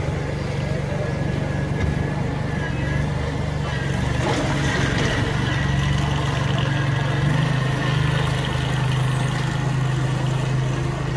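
Engine of a large construction machine running steadily, a deep even hum with a faint high whine above it.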